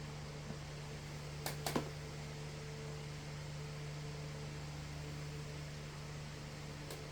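Model steam locomotive's small electric motor and drive running at a steady low speed on a rolling road, a continuous low hum, with a few light clicks a second or so in and one near the end.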